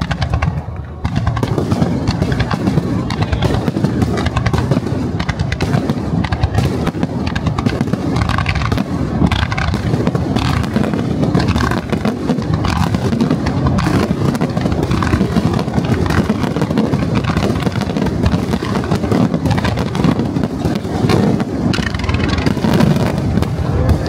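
Rapid-fire barrage of aerial firework shells bursting, with booms, pops and crackling overlapping without pause. It steps up sharply about a second in.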